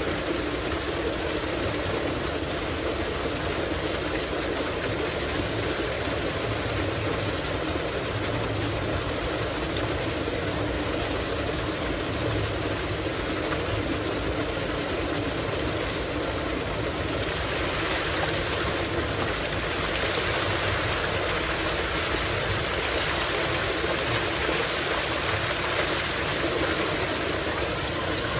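Tubewell water gushing steadily from a large pipe into a concrete tank, with the steady hum of the pump running underneath. It turns brighter and a little louder about two thirds of the way in as a man in the tank splashes water.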